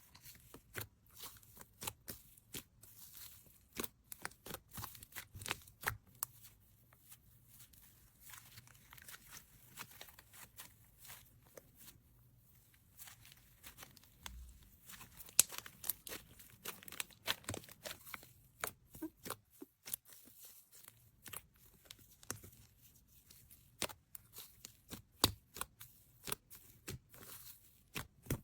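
Hands working crinkly plastic and tape: irregular crinkling, tearing and crackling, with many sharp little clicks and taps.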